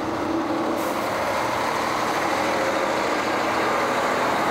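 Lorry hauling a refrigerated shipping container, its engine and machinery running at a steady, unchanging hum.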